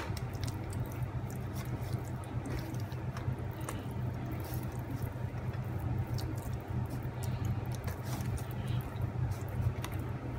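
Wet squelching and light slapping of hands rubbing melted butter over a raw chicken's skin, in many small irregular squishes, over a steady low hum.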